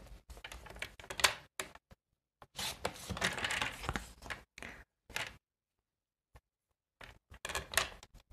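Paper tags and craft tools being handled on a work surface: scattered clicks and taps, with a longer stretch of paper rustling and scraping about three seconds in.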